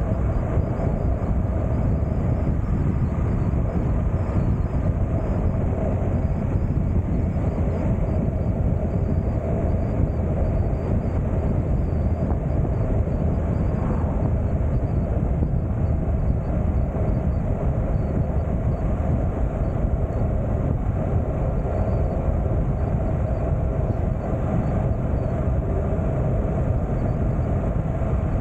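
A 2019 Honda NC750X motorcycle cruising at a steady speed, heard as a constant rush of wind and road noise over the low hum of the running bike. It stays even, with no gear changes or revs standing out.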